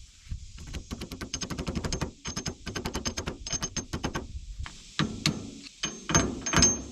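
Hammer tapping rapidly on metal with a ringing tone, several light strikes a second, then a few heavier blows near the end: a grease seal being driven into an Allis-Chalmers D17 tractor wheel hub.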